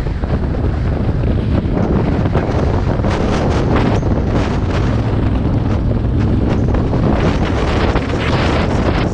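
Heavy wind buffeting on the microphone over a motorcycle engine running steadily on a loose gravel track, with scattered clicks and rattles of stones under the tyres.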